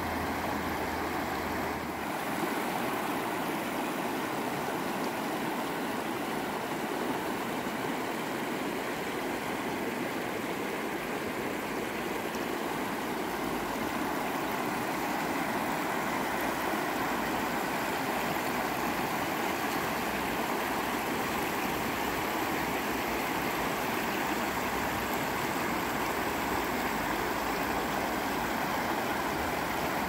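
The Tisza, a fast mountain river, churning over stony riffles: a steady rush of water.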